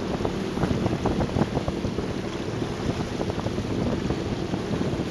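Wind buffeting the microphone aboard a boat under way, with a steady low engine drone and the wash of water underneath. The buffeting is choppiest in the first two seconds.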